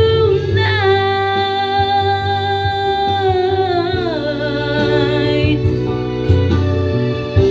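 A woman singing a long held note with vibrato into a handheld microphone over a karaoke backing track with guitar; the note slides down about four seconds in.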